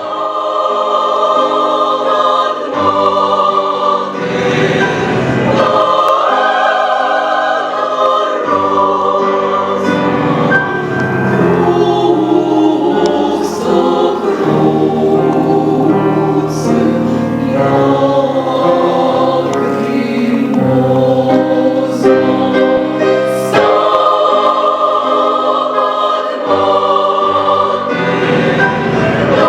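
Women's choir singing in parts, holding chords that change every couple of seconds.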